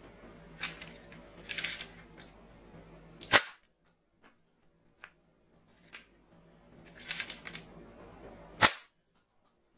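Blaze Storm manual soft bullet bow, a plastic toy blaster, firing twice, each shot a sharp snap about five seconds apart. Before each shot come plastic clicks and rattles as it is primed and loaded.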